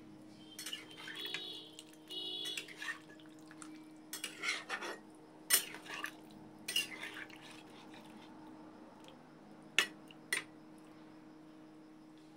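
Kitchen utensils and dishes clinking and scraping in irregular bursts, then two sharp clicks near the end, over a steady low hum.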